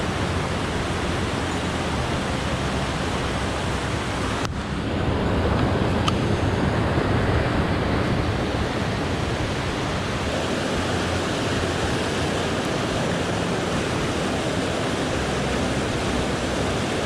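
Steady rush of a swollen mountain stream and waterfall, running high after recent rain. There is a brief dip about four and a half seconds in and a light click about six seconds in.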